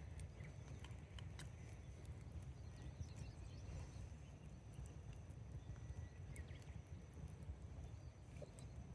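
Wood campfire crackling faintly, with scattered small pops and ticks over a steady low rumble.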